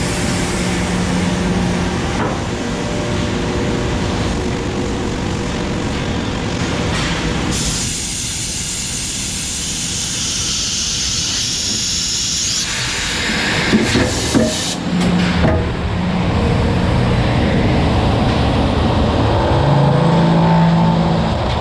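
Machine-shop machinery cutting aluminum logistic track, running loud and steady with a low hum. A loud hiss comes in from about 7 to 13 seconds, followed by a few sharp knocks.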